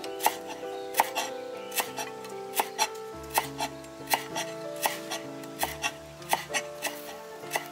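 A knife chopping on a cutting board, striking about twice a second at an uneven pace, over background music.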